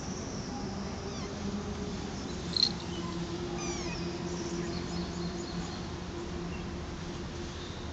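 A tabby kitten gives a few faint, high-pitched mews over a steady low hum, with one sharp click about two and a half seconds in.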